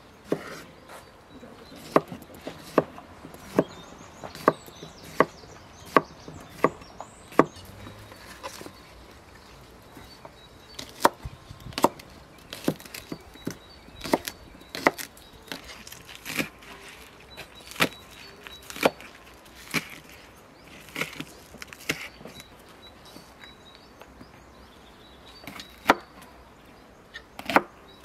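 Large chef's knife chopping vegetables on a wooden cutting board: sharp knocks of the blade on the wood. At first they come evenly, a little more than one a second; after a pause they turn irregular, and a few more come near the end.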